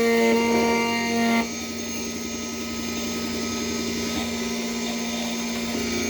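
Computerized key cutting machine's spindle motor running a 2.0 mm mill as it cuts a single-sided Toyota TOY40 key blade. It makes a steady machine whine that drops in loudness and changes tone about a second and a half in, then runs on evenly.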